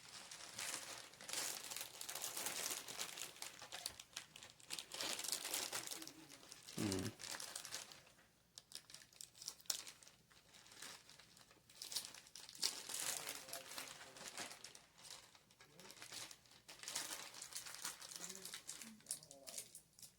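Packaging being handled and crumpled: irregular crinkling rustles with scattered sharp clicks and knocks, and one short low thump about seven seconds in.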